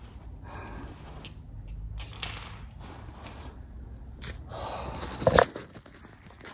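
Faint scrapes and clicks of handling, then a loud knock and rustle about five seconds in as the camera is picked up and moved.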